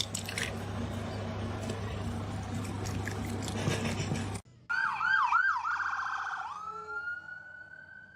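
Emergency-vehicle siren: a few quick rising-and-falling yelps, then one long held tone that slowly sinks. Before it, a few seconds of steady noise with a low hum, which ends in a sudden cut.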